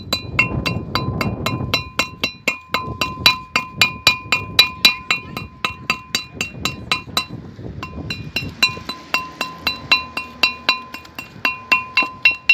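A hammer striking a removed car brake disc in quick, even blows, about four a second, knocking off the rusted lip at its edge. Each blow leaves the steel disc ringing with a clear metallic tone.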